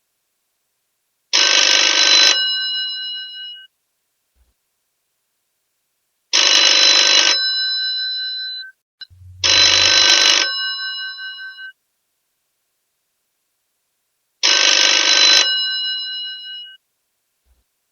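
Old telephone's bell ringing in bursts about a second long, each trailing off in a lingering ring. There are four rings, at uneven gaps, the second and third close together, with silence between them.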